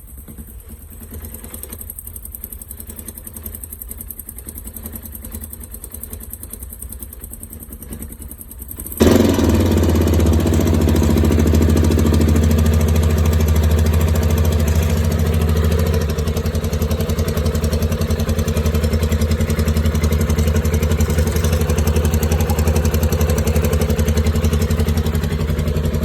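Minsk 400 motorcycle engine idling with an extraneous rattle, like a rattling chain. The owner suspects the timing chain tensioner: its spring keeps breaking and the chain may not be tensioned enough. About nine seconds in the engine sound becomes suddenly much louder and fuller, then stays steady.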